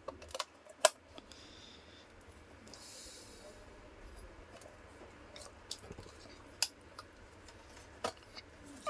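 Scattered small clicks and taps of table fan parts being handled and fitted back together, with a short soft hiss about three seconds in.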